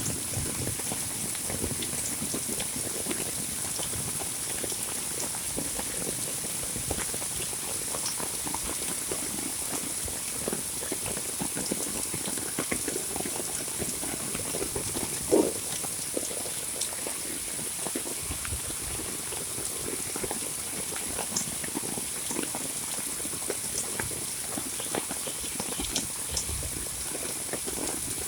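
Heavy monsoon rain falling steadily, with scattered close drops tapping and one louder drop hit about halfway through, over a steady high-pitched hiss.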